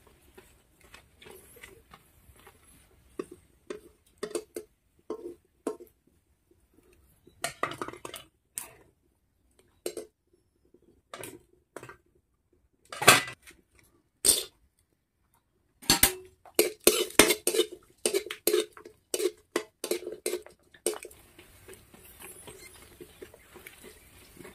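A steel ladle clinking, knocking and scraping against a steel kadai and strainer as frying puris are turned and lifted out. The knocks come irregularly, with a dense run of clinks about two-thirds of the way through.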